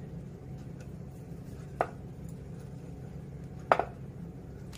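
Two sharp knocks about two seconds apart, the second louder: a wooden rolling pin knocking against a round aluminium rolling board as small puris are rolled out. A steady low hum runs underneath.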